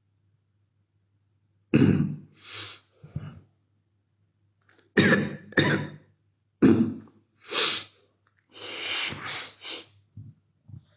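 A man coughing in a fit of about seven hard coughs, starting about two seconds in, in two clusters, followed by a longer rasping sound near the end. It is the lingering cough of a COVID-19 infection.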